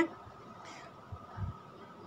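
A pause in speech: faint room noise with a thin steady hum, and two dull low thumps near the middle.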